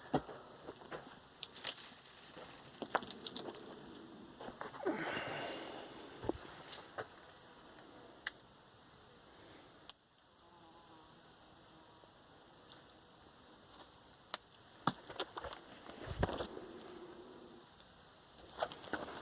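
A steady, high-pitched insect chorus drones throughout, dropping away sharply twice (about two seconds in and again around ten seconds) before building back up. Faint rustles and clicks sound here and there.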